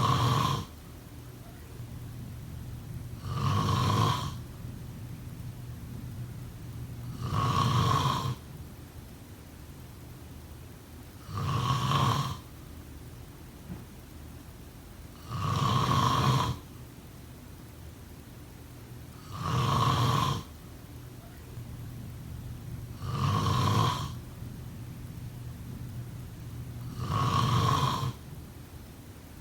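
A person snoring in a slow regular rhythm, one loud snore about every four seconds, each lasting about a second.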